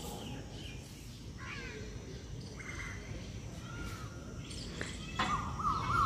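Wild birds chirping and calling sporadically over a steady low outdoor background. About five seconds in, a louder, rapidly warbling tone starts and holds steady.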